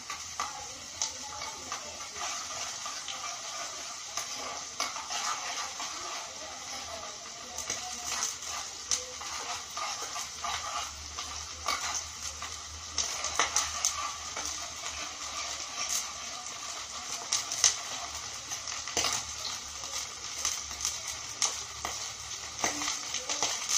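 Sliced shallots frying in hot coconut oil in a small pan, a steady sizzle with frequent sharp pops and crackles, stirred with a metal spoon. The spitting comes from a little water left in the pan.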